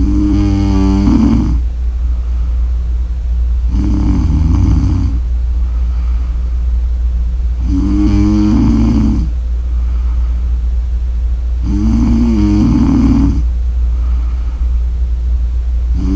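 A woman snoring in a steady rhythm: four snores about four seconds apart, each a second and a half or so long, with a fifth starting right at the end. A steady low hum runs underneath.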